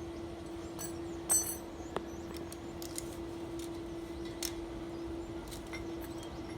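A steady hum with scattered light clinks and taps, the sharpest about a second in, typical of metal pieces being handled during welding work.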